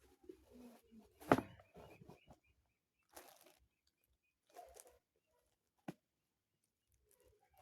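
A person coughing quietly a few times in short separate bursts, the first the sharpest, with a brief click later on.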